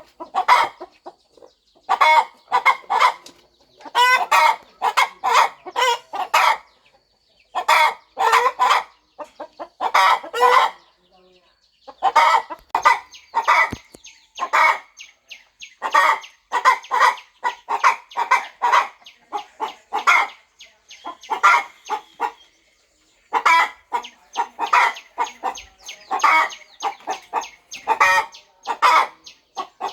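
Broody mother hen clucking: bursts of short, quick clucks, several a second, with brief pauses between the bursts.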